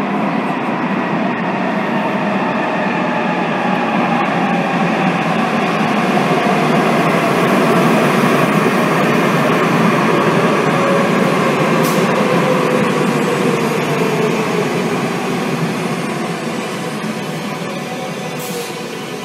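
A Madrid Metro 5000-series train arriving and running past along an underground platform. The wheels and running gear rumble steadily, with a whine that falls slowly in pitch. It gets louder for the first half and then eases off.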